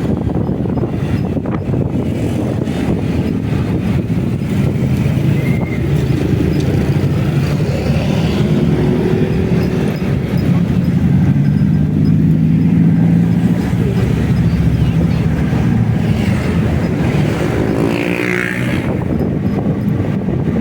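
Riding a motorcycle: steady engine and road noise with wind on the microphone. A stronger engine note swells through the middle and a short rising sound comes near the end.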